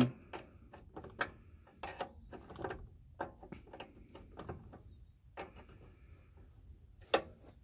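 Adjustable wrench clinking on a bolt head as the bolt is loosened out of a sheet-steel side panel. It makes a series of irregular metal clicks and taps.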